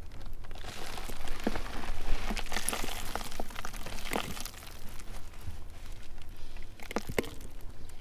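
Dry, loose soil scraped and crumbled away by hand, a gritty rustle with a few sharp clicks, while digging a buried glass bottle out of the dirt.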